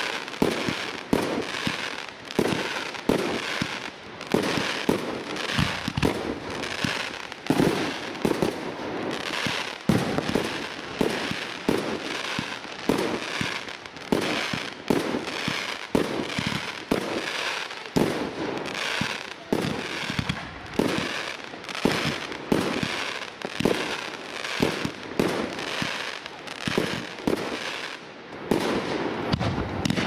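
Aerial firework shells bursting in a steady barrage, sharp bangs coming about one or two a second, each with a short echo.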